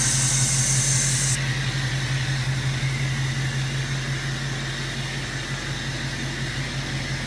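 2017 Ford F-250's 6.7-litre Power Stroke V8 diesel idling steadily, with a high hiss that stops about a second and a half in.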